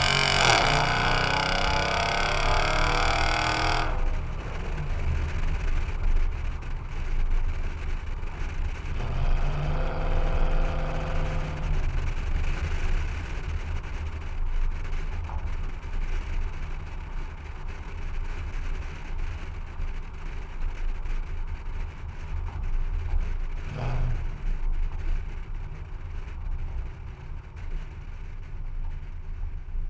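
Toyota Tundra's 4.6-litre V8 through a stainless straight-pipe exhaust with the factory muffler removed, pulling hard under acceleration with rising pitch at first. It then settles to a low rumble with tyre and wind noise while cruising, and pulls again briefly about nine seconds in.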